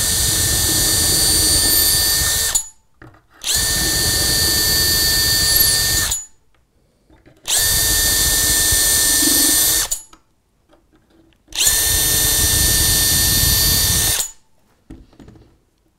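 Makita 18V cordless drill running at a steady speed four times, each run about two and a half seconds with short pauses between, as it bores the four locating holes through a point-motor jig into the baseboard.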